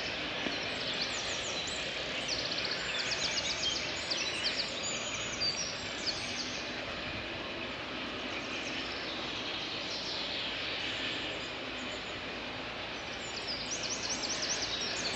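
Songbirds singing fast, repeated trills over a steady background noise, with a burst of song in the first few seconds and again near the end.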